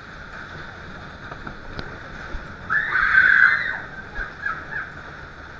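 A rider on a spinning fairground ride lets out a loud, high scream lasting about a second, roughly halfway through, over the ride's background noise.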